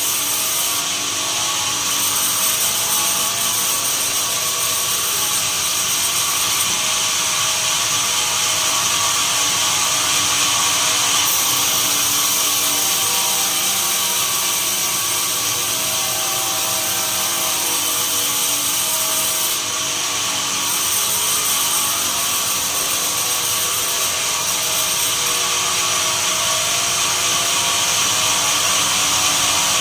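Sawmill machinery running steadily while a saw cuts pine, a continuous hissing whine with a constant drone underneath.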